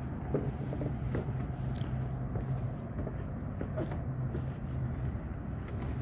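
Steady low mechanical hum of city background, fading about five seconds in, with scattered light clicks and a brief high chirp.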